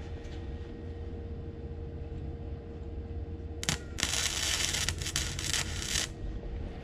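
Welder tack-welding a sleeve into a rusted exhaust pipe: a short crackle a little over three and a half seconds in, then about two seconds of steady crackling hiss from the arc.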